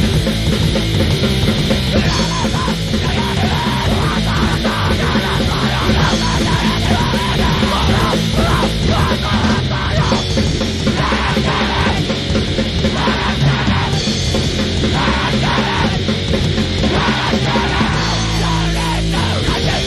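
Grindcore music: heavily distorted guitars and fast drums with yelled vocals, dense and loud throughout.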